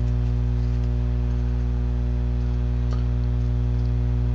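Steady electrical mains hum with a ladder of low overtones, picked up by the webcam's microphone, and one faint click about three seconds in.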